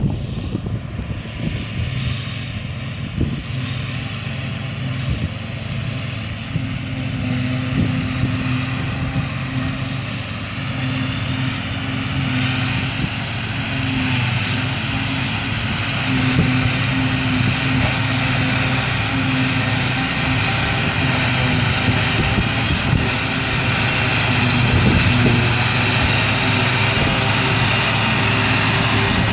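Two tractors and a trailed forage harvester picking up and chopping grass silage, with a steady engine drone under a whirring rush from the harvester. It grows gradually louder as the machines come closer.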